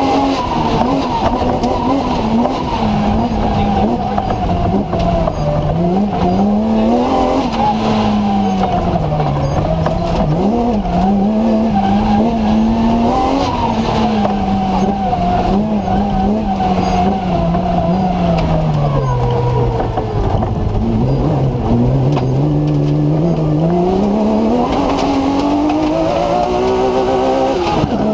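BMW M3 engine in a TMC off-road competition car, heard from inside the cabin, revving hard on a stage with its pitch rising and falling through throttle and gear changes. It drops to its lowest about twenty seconds in, then climbs steadily in the last few seconds.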